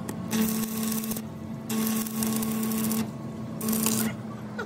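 Stick arc welding on a steel truck axle spindle: the arc crackles and hisses in three bursts of about a second each, with short breaks between them. A steady hum runs underneath and is stronger while the arc burns.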